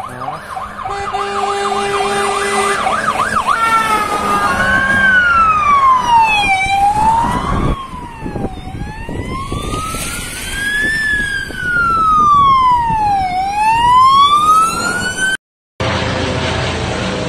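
Emergency vehicle sirens going past: a fast yelping siren with a steady horn tone under it, then from about four seconds in a slow wailing siren rising and falling every few seconds. After a sudden cut near the end, a helicopter's steady rotor and engine noise.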